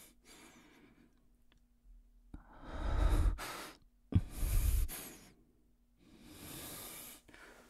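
A man breathing close to the microphone: several slow, heavy breaths and sighs, the two loudest a little past three and four seconds in, with a breathy rush hitting the mic.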